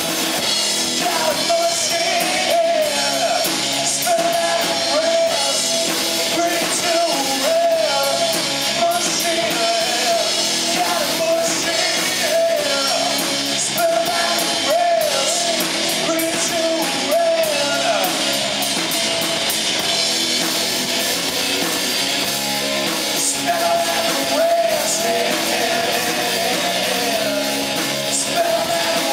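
Live rock band playing: drum kit with cymbals and bass guitar, with a voice singing a wavering melody over them. The vocal drops out for a few seconds past the middle, then comes back.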